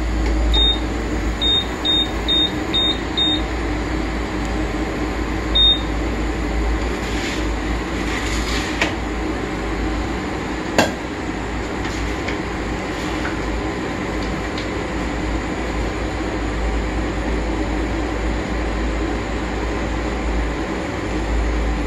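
Sunflame induction cooktop being switched on and set: seven short high beeps from its buttons in the first six seconds as the power setting is raised, over the steady hum of its cooling fan.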